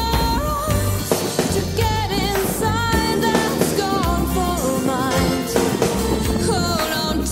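Background song with a singing voice over instrumental accompaniment and a steady beat.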